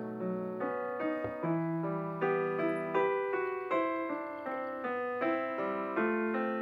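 Background piano music: a gentle melody of single notes, each struck and fading, a few notes a second.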